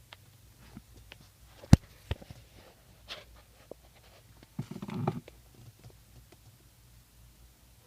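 Scattered handling noises: a sharp click a little under two seconds in, another soon after, smaller ticks, then a brief rustling rumble around five seconds.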